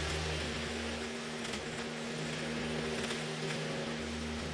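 Small petrol engine of a hand-held garden power tool, such as a chainsaw, running steadily at high revs.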